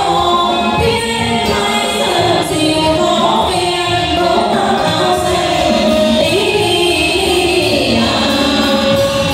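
A song with several voices singing together over instrumental accompaniment, played at a steady level.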